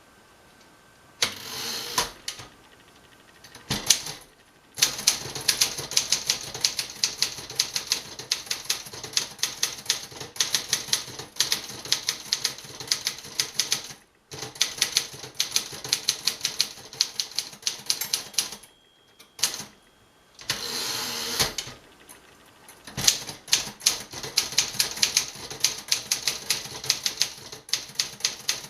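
1956 Remington-Rand Letter-Riter portable manual typewriter being typed on: long runs of fast keystrikes broken by carriage returns. About two-thirds through, the bell sounds near the end of a line, just before a carriage return, as it was adjusted to do about five characters before the margin.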